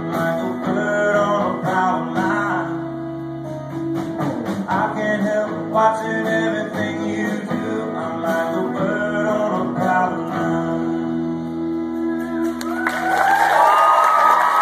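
Acoustic guitar playing the closing bars of a song, with some wordless singing over it. Near the end, audience applause and cheering break out.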